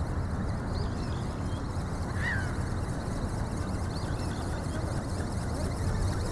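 Steady low outdoor rumble with a single short, falling bird call about two seconds in and a few faint high chirps.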